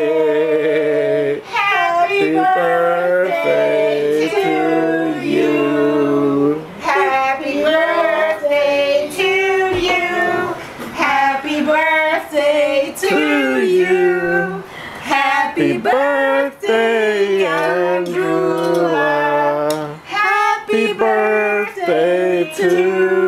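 Female voices singing a song at full voice, phrase after phrase, some notes held long.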